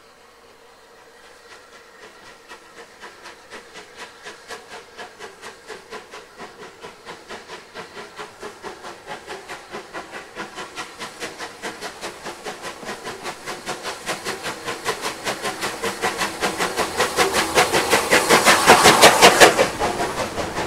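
Steam locomotive working hard as it pulls away, its exhaust beating sharply and evenly about four times a second and growing steadily louder as it approaches. The beats are loudest as the engine passes close by near the end, then drop away suddenly as the coaches roll past.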